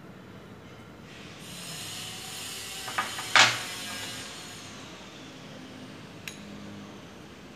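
Steel spoon and glass bowls being handled while dry flour is spooned over okra: a soft rustling hiss, with a sharp clink of metal on glass about three seconds in and a light tick near the end.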